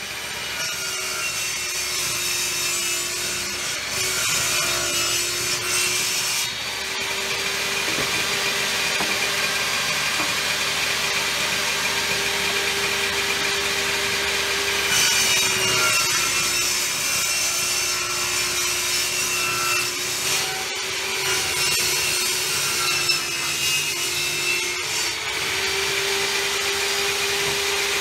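Table saw ripping a wide edge-glued wooden tabletop panel fed along the fence. The blade's steady hum runs under the hiss of the cut, fading in over the first second or two.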